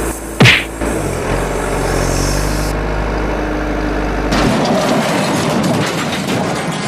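Truck engine idling, with a very loud, short high-pitched sound about half a second in. From about four and a half seconds in, the engine gives way to a rough crackling noise full of small ticks.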